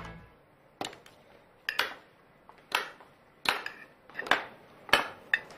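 Spoon and fork clinking against china plates during a meal: about seven separate sharp clinks spread over a few seconds.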